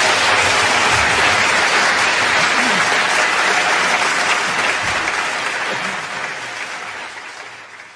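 Audience applauding steadily, then fading away over the last couple of seconds.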